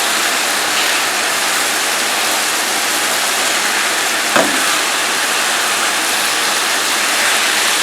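Ground beef frying in a pan with a steady, loud sizzle. A brief clink comes about four seconds in.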